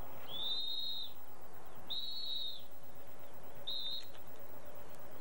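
A handler's dog whistle blown three times to direct a pointer running in the field: two long, high, steady blasts and a shorter third one.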